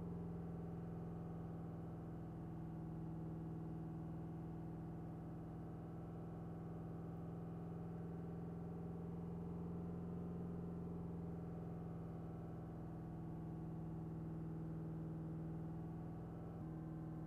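Ford 6.7 L Powerstroke V8 turbodiesel held steady at about 2,500 rpm, a constant drone heard from inside the cab, easing slightly near the end. The engine is being run at raised rpm to heat the exhaust until the exhaust fluid system fault clears during a forced-idle reset.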